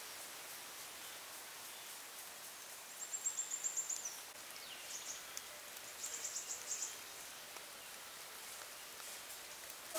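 Forest ambience: a steady hiss of background noise with a small bird's high-pitched trilling calls, two quick trills of about ten notes a second, the first ending in a falling slur, and a short falling whistle between them.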